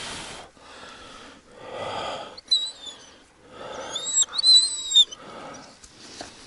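A hound whimpering in short, high-pitched whines between loud, wheezy breaths; the dog is lame, not putting weight on an injured front paw.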